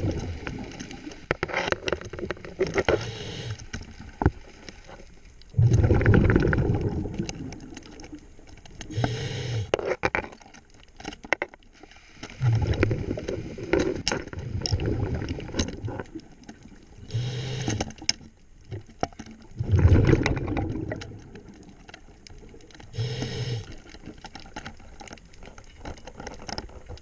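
Scuba diver breathing underwater through a regulator: a low bubbling rumble of exhaled air every few seconds, alternating with shorter hissing inhalations, with scattered sharp clicks and knocks between breaths.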